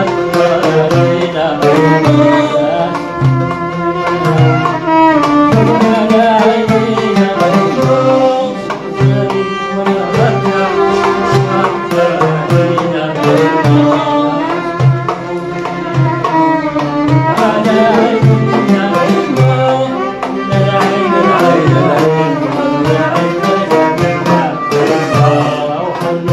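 Oud melody, plucked and strummed, over a hand drum keeping a steady beat: a traditional Arabic song played live.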